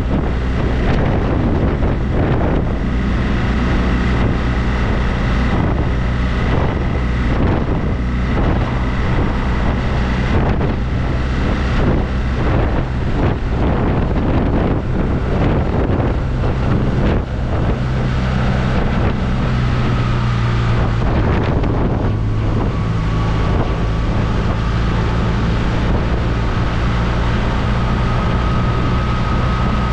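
BMW R1200RT motorcycle under way, its flat-twin boxer engine running steadily beneath heavy wind noise rushing over the GoPro's microphone. The engine note shifts about two-thirds of the way through, after a brief dip in loudness.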